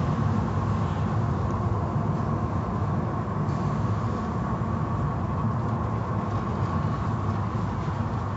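Automatic tunnel car wash heard from inside the car: cloth brushes scrubbing and water spraying against the windows over a steady machinery rumble. The hiss of the spray eases about three and a half seconds in as the brushes pass off the glass.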